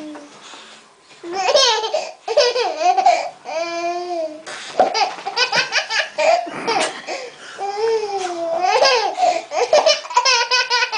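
Baby laughing in repeated bursts: high squealing laughs and quick runs of chuckles, with a short pause about a second in.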